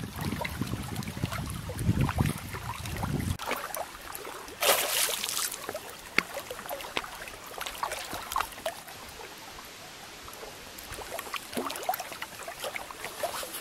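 Shallow water lapping and trickling, with small clicks of water movement and a short splash about five seconds in. Wind rumbles on the microphone for the first three seconds.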